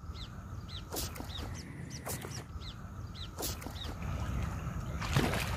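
A bird calling with short repeated downward chirps, a few sharp clicks among them. About five seconds in, water splashing rises as a hooked snakehead thrashes at the surface.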